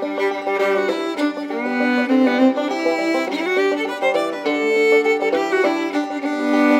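Instrumental background music led by a fiddle.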